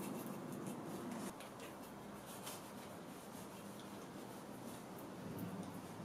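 Paintbrush and then a fine metal-tipped tool scratching and rubbing against a mirror frame in short, irregular strokes, with a faint low hum behind.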